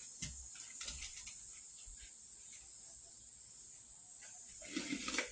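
Faint clicks and knocks of an insulated cook pot and cup being handled and set down, over a steady high hiss, with a slightly louder knock or rustle near the end.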